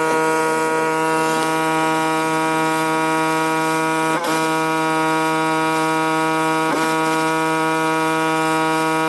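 Pressure washer running steadily: a loud, even droning tone over the hiss of the spray, dipping briefly twice, about four and about seven seconds in.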